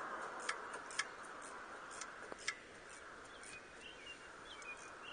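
A handful of faint, scattered clicks in the first couple of seconds, then quieter, as hands work a loosened oil pan bolt out of a 2004 Saturn Ion's oil pan. A few faint bird chirps near the end.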